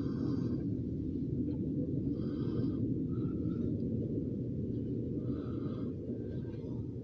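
A steady low rumble heard inside a vehicle's cabin, with a few short, faint higher sounds every second or two.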